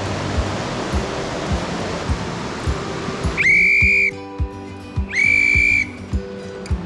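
A hand whistle blown twice in the second half, two steady, high, piercing blasts of under a second each, over the rush of a mountain stream: blown to warn off bears after fresh bear-cub tracks were found.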